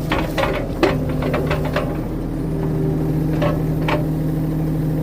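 Mini excavator's engine running steadily, with a quick string of sharp knocks and clanks in the first two seconds and two more about three and a half seconds in.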